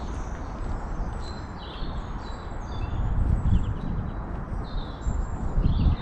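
Small birds singing in the dawn chorus: many short high chirps and trills from several birds, over a low, uneven rumble that swells a few seconds in and again near the end.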